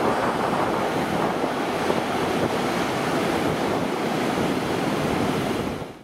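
Ocean surf breaking and whitewater rushing, with wind buffeting the microphone; it fades out to silence at the very end.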